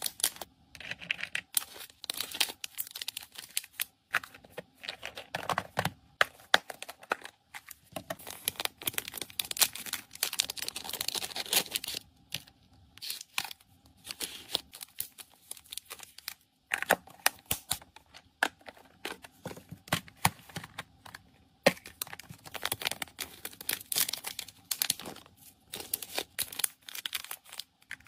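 Close-up handling of plastic packaging: thin clear plastic bags crinkling and rustling, mixed with sharp clicks and taps of small plastic containers and lids. The crinkling is densest for a few seconds in the first half, and there are short pauses between bursts.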